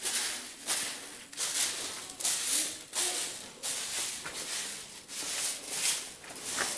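Footsteps scuffing over a gritty rock and sand floor at a steady walking pace, about three steps every two seconds.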